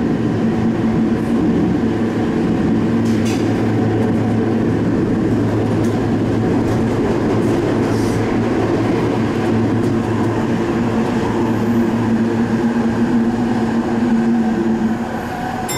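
Sendai Subway Tozai Line 2000 series linear-motor train running between stations: a loud, steady running rumble with a droning hum under it, the hum stopping and the sound easing off near the end.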